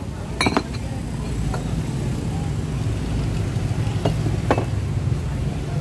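Ceramic noodle bowls clinking as they are set down and handled on a steel cart counter: a pair of sharp clinks about half a second in and two more about four seconds in, over a steady low background rumble.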